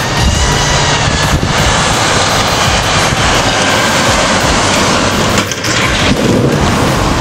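Car driven at speed along a test track into a roadside post in a staged crash, heard as a loud, steady rushing noise with a brief dip about five and a half seconds in. No sharp impact stands out.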